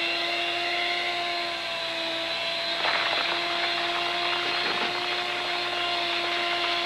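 Electric kitchen mixer running steadily at its high whip setting, churning coarse, gritty sand in a bowl. The motor hum holds a constant pitch under a grinding rasp, with a louder scrape about three seconds in.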